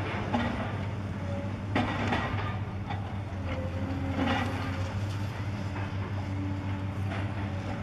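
Cat 5080 demolition excavator's engine running steadily while its demolition grab crunches and tears through the concrete and steel of the building, with crashes of breaking material about two and four seconds in and short metallic squeals.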